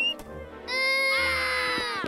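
A cartoon character's voice in one long held cry of dismay, lasting about a second and dropping slightly in pitch at the end, over background music.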